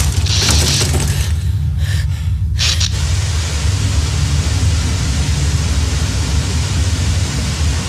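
Steady low rumble under a constant hiss of noise. The hiss falls away about a second and a half in and comes back at about three seconds, while the rumble runs on unchanged.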